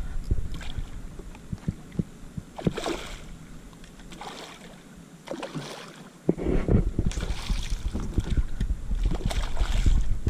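Water splashing and knocking around a kayak as a hooked fish is fought beside it, in irregular bursts over a low rumble of wind and handling on the microphone. It goes quieter for a few seconds in the middle, then the splashing and rumble pick up again.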